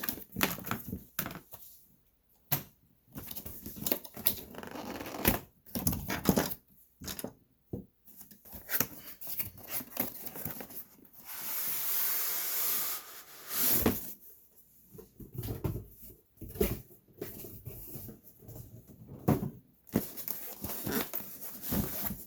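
Cardboard box and packaging being handled and opened: scattered rustles, knocks and crinkles, with a longer tearing noise of a couple of seconds a little past halfway.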